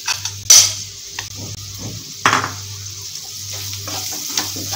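A metal spoon knocks and scrapes against a plate as mashed potato is tipped into a hot non-stick kadai, with several sharp clacks in the first second and another about two seconds in. Then a wooden spatula stirs the potato and spices in the pan over a light sizzle.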